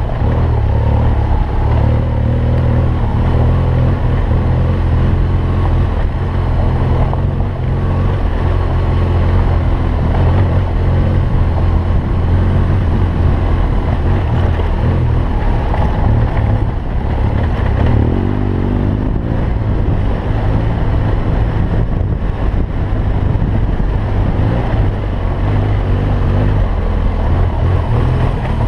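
BMW R1200GS boxer-twin engine running steadily while the motorcycle is ridden, with heavy wind rushing over the microphone.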